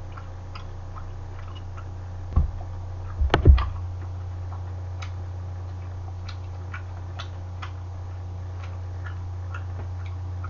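Quiet eating at a table: metal utensils knock against a pot a few times about two and a half and three and a half seconds in, with faint scattered clicks of eating over a steady low hum.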